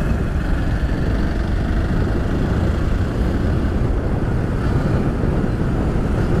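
Steady rumble of road and wind noise from a vehicle travelling along a road.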